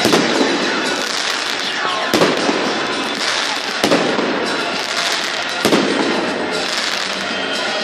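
Fireworks bursting overhead: a sharp bang about every two seconds over continuous crackling.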